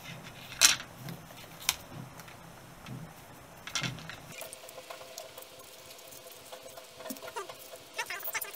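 Handling noise of a plastic dashboard air vent and neoprene rubber seal pieces being worked by hand: a few sharp clicks and taps, the loudest about two-thirds of a second in, then light rubbing with small squeaks of rubber against plastic in the second half.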